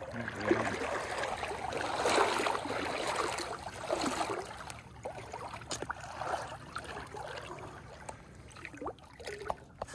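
Water swishing and splashing around an angler's legs as he wades through a shallow stream in chest waders, over the stream's steady flow. The swishes swell and fade with his strides, and a few light clicks come in the second half.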